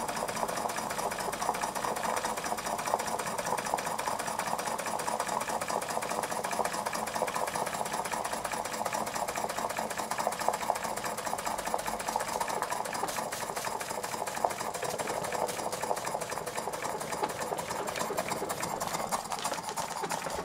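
Mamod SP8 model steam engine running steadily, with a rapid, even mechanical beat of small ticks.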